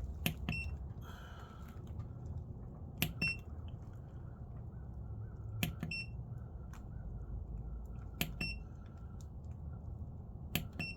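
A sharp click followed by two short, high chirps, repeating five times at about two-and-a-half-second intervals, over a low steady hum.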